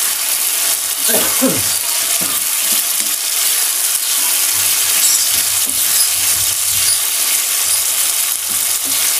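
Sambal bajak (chili paste) frying and sizzling in oil in a small pan, stirred with a metal spoon.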